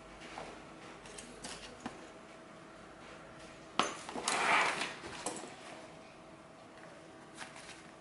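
Handling of a tool bag's shoulder strap: light clicks and clinks from its metal clip hardware, a sharp click a little under four seconds in, then about a second of fabric rustling as the strap is pulled.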